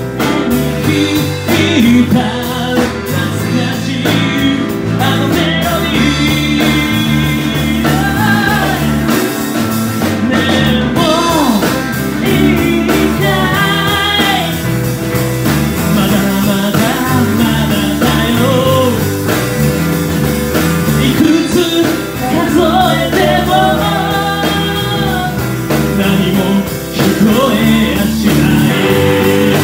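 Three-piece rock band playing live: a lead vocal sung over electric guitar, bass and drums.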